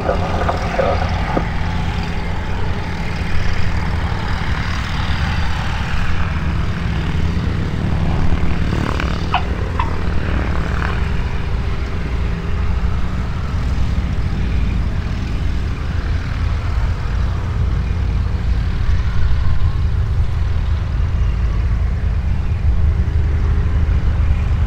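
Propeller aircraft engine running steadily.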